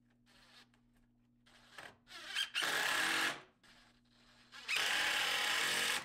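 Cordless drill/driver running in two short bursts, about a second apart, the second one longer.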